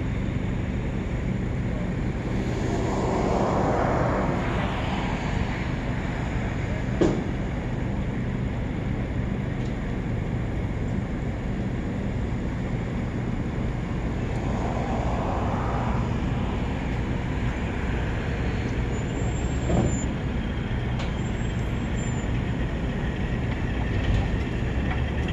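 Steady rumble of a train rolling through a railroad crossing, with a sharp knock about seven seconds in and another just before twenty seconds.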